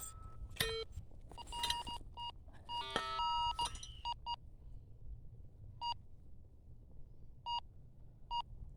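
Metal detector giving short target beeps as it is swept over a buried metal target, with a burst of several mixed-pitch tones about three seconds in and then three single beeps spaced out near the end. The signal marks the spot to be dug.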